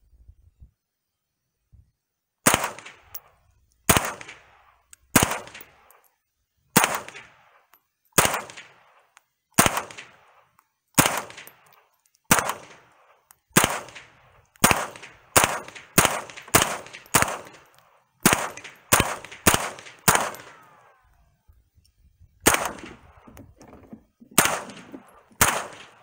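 Smith & Wesson M&P 15-22 semi-automatic .22 LR rifle firing about twenty single shots, each a sharp crack with a short echo. The shots come about one every second and a half at first, then a quicker run of about two a second, then slow again near the end. The old Federal rounds all fire and the rifle, fitted with a Volquartsen extractor, cycles through the magazine without a failure.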